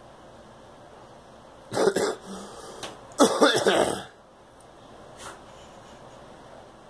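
A girl coughing: a sharp cough or two about two seconds in, then a quick run of several louder coughs a second later, and one faint cough near the end.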